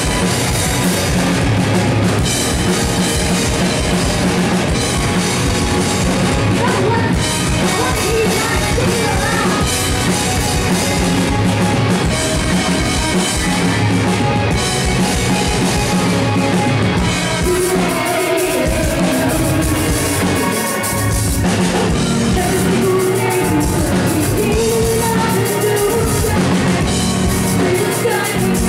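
Post-hardcore band playing live: electric guitars, bass guitar, drum kit and a singer's vocals through the PA. The low end drops away briefly about two-thirds of the way through.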